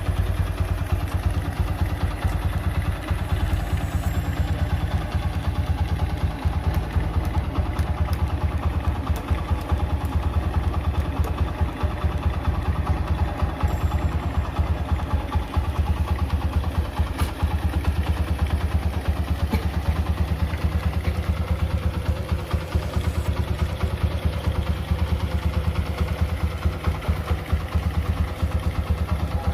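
Honda Mega Pro single-cylinder motorcycle engine idling steadily with an even, rapid beat.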